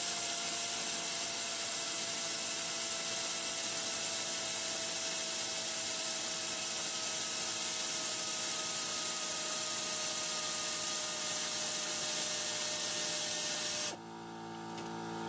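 Air ratchet running continuously with a steady hiss of exhaust air and a faint whine that sinks slowly in pitch, backing out an AC compressor mounting bolt. It cuts off suddenly about 14 seconds in.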